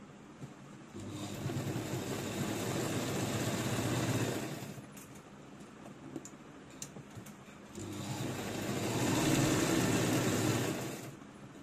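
Motor-driven embroidery sewing machine with a small motor running in two bursts of about three seconds each, stitching zari (metallic thread) dots, with a few soft clicks in the pause between bursts.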